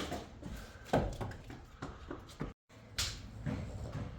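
Scattered knocks and bumps of things being handled, with louder knocks about a second in and about three seconds in, and the sound cutting out briefly just before the second.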